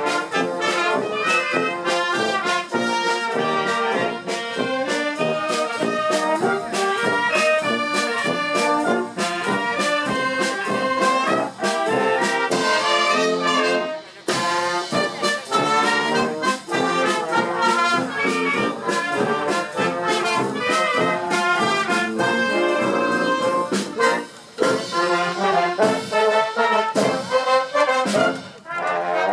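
Wind band playing live: brass and clarinets over drums keeping a steady beat, with two brief pauses, about halfway and near the end.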